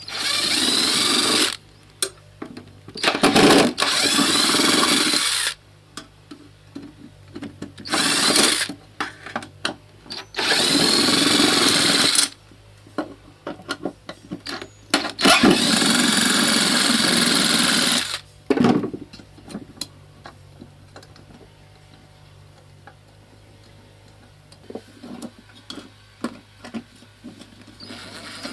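Washing-machine motor spun up in five short runs of one to three seconds each, its whine rising and falling in pitch as it speeds up and slows down. It is being driven as a generator through a three-phase bridge rectifier. Faint clicks come in the pauses.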